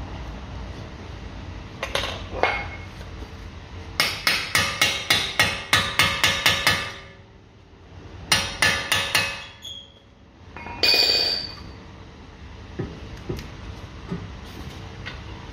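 Hammer blows on steel, freeing a car's seized front driveshaft from the wheel hub splines: a couple of single strikes, then two fast runs of about four blows a second, and a louder ringing metal clank near the end.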